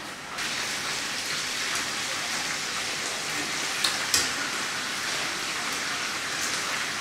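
Chunks of meat sizzling steadily in hot oil in a frying pan, starting about half a second in, as they are turned with metal tongs. Two sharp clicks of the tongs against the pan a little past halfway.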